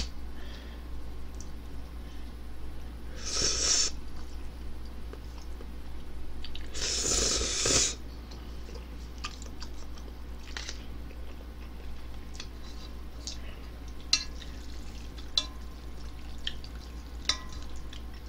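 Eating ramen noodles: two loud slurps about three and seven seconds in, then chewing and several sharp clicks of chopsticks and a wooden spoon against a stainless steel pot.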